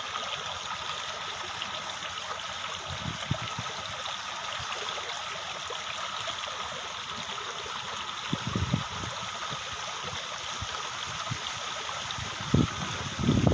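Steady rush of flowing stream water, with a few soft low thuds around the middle and near the end.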